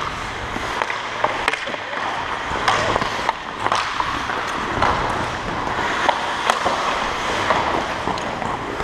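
Ice hockey skates scraping and carving on rink ice, with sharp clacks of sticks and puck scattered throughout.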